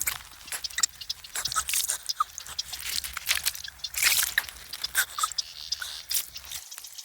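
Water splashing and dripping in quick, uneven bursts with crackly high hiss.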